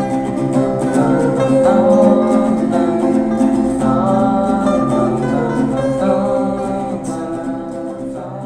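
Background music: an instrumental outro of a pop song with plucked acoustic guitar, fading out near the end.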